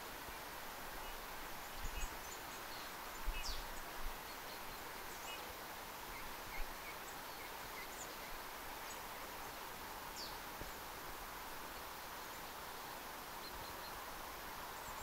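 Quiet forest ambience: a steady hiss with faint, scattered short bird calls high above it. A few soft low thumps come about two, three and a half, and six and a half seconds in.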